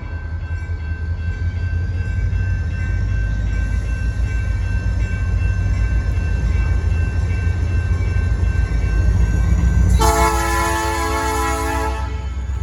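Diesel freight locomotive rumbling closer and louder. Near the end it gives one horn blast, a chord about two seconds long.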